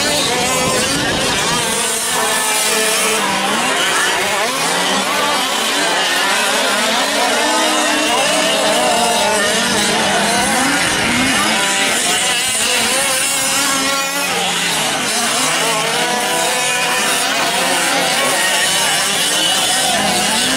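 Several 1/5-scale gas RC trucks with small two-stroke engines revving up and down together while racing, their pitches rising and falling and overlapping.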